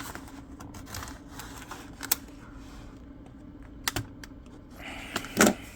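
Plastic blister packaging of a Matchbox diecast car being cracked and pried open by hand: scattered sharp clicks and snaps, the loudest a short crackle near the end.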